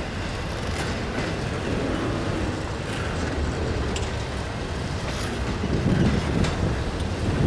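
A Union Pacific train rolling past: a steady rumble of wheels on rail with a few faint clicks, and wind on the microphone.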